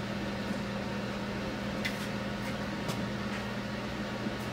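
Steady hum of a kitchen fan motor over a faint even hiss, with a few light clicks about two and three seconds in.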